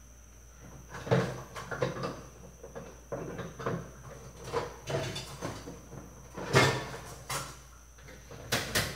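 Irregular knocks and clatter of kitchen items being handled, like cupboard doors, bowls and utensils, with the loudest knock about six and a half seconds in and two sharp clicks near the end.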